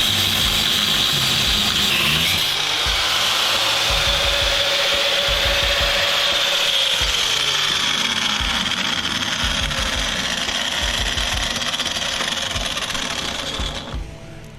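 Angle grinder with a cut-off wheel cutting through an electric motor's copper stator windings: a loud, steady high whine with grinding noise. It is not cutting as easily as it should. The grinder shuts off near the end.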